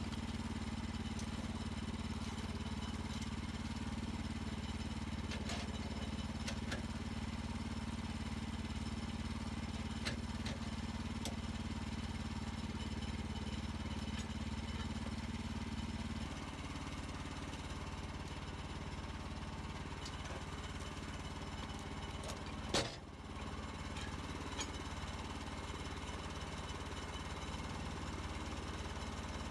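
Engine of a Woodland Mills HM130 Max bandsaw mill running steadily, its note and level dropping slightly about halfway through. A single sharp knock sounds near the end.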